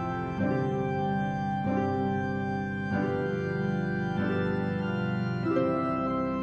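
Background music of slow, sustained organ chords, the chord changing about every second and a quarter.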